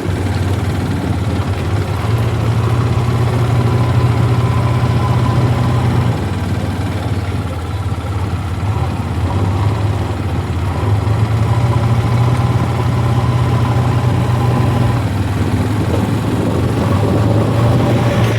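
Heavy diesel engine of a backhoe loader or tractor running steadily with a strong low hum, which grows louder for a few seconds at a time: a couple of seconds in, around eleven seconds, and near the end.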